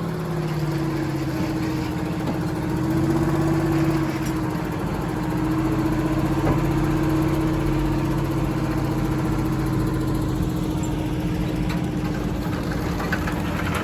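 Engine of a piece of vintage construction machinery idling steadily.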